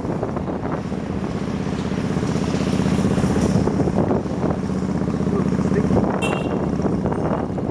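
Motorbike engine running steadily while riding, with wind noise buffeting the microphone. A short high-pitched beep sounds about six seconds in.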